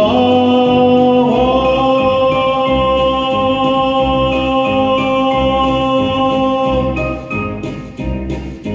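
A man singing the song's long final held note into a microphone over a backing track. About seven seconds in the voice stops, and the accompaniment plays a few closing notes and fades out.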